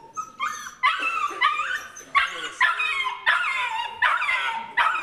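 Border terrier giving a rapid string of high-pitched excited yelps and howls, over and over from about a second in. It is a cry of joy, from a dog mad about its ball.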